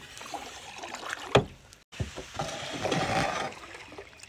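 Yellow plastic paddle stroking through river water beside a small metal boat, with water sloshing and splashing. There is a sharp knock about a second and a half in, and a longer splash of water around the third second.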